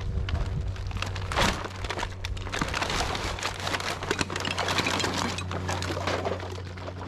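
Glass bottles, cans and plastic bottles clattering and clinking as a woven sack of creek trash is tipped and shaken out onto a tarp, with the sack rustling; the loudest clatter comes about a second and a half in. A steady low drone runs underneath.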